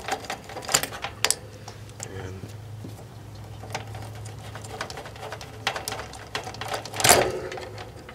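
Push-on spade connectors of the condenser fan motor's wires being pulled off the dual run capacitor and contactor terminals by hand: scattered sharp clicks and small rattles, the loudest about seven seconds in.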